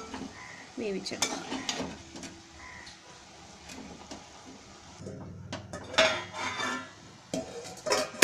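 A steel spoon stirring and scraping chopped pumpkin leaves with coconut in an aluminium pot, the greens being stir-cooked until the water dries off. Scattered clinks of the spoon on the pot through the stirring, and one loud clank right at the end.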